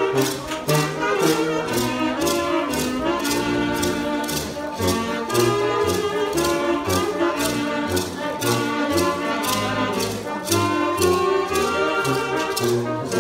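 Brass band playing dance music over a steady percussion beat.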